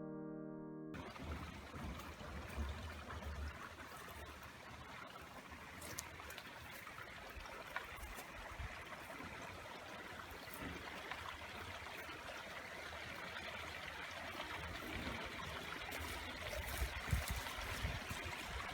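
A stream trickling steadily, with a few soft low thumps near the start and again near the end.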